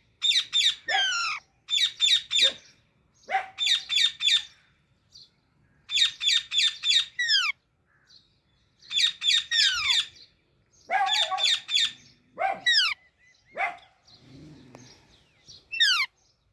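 Baby Alexandrine parakeet calling in repeated bursts of quick, high chirps, many bursts ending in a falling note, with short pauses between them.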